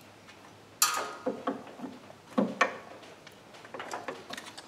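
Clinks and knocks of metal tools and parts: a sharp clank about a second in that rings briefly, two more knocks a little past halfway, then lighter ticks.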